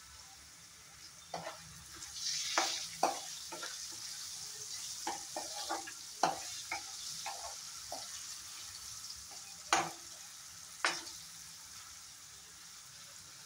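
Potatoes and ground spices sizzling in hot oil in a kadai while a steel ladle stirs them, scraping and knocking against the pan in a string of short clanks. The sizzle is loudest a couple of seconds in, and two of the louder clanks come about a second apart later on.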